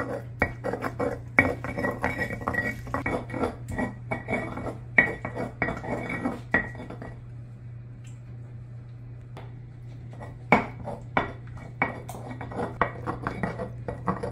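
Dishes and utensils clinking and knocking in quick clusters, thinning out about halfway through to a few scattered knocks, over a steady low hum.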